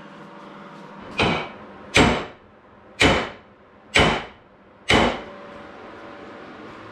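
Hammer blows on an old, rusted-up cast-iron arbor press, five strikes about one a second, each ringing briefly, as a part stuck in the frame is beaten loose.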